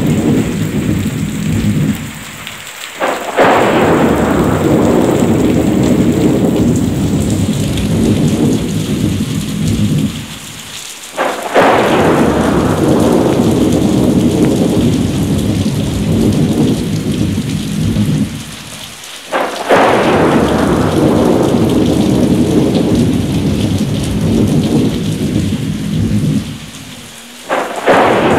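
Thunderstorm: heavy rain with thunderclaps that come at even intervals about every eight seconds, each one sudden after a short lull and then rolling away under the rain.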